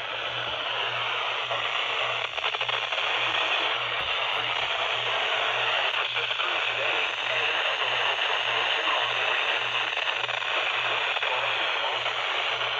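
Weather radio hissing with static: a steady rush of noise over a low, pulsing hum.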